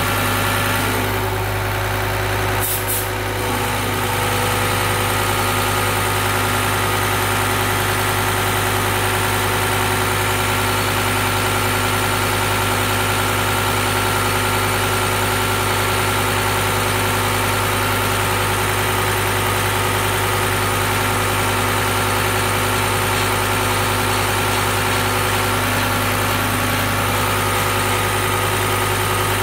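Diesel injection-pump test bench running steadily, its drive motor spinning the mounted injection pump with a constant hum and several steady tones. A short clatter about three seconds in.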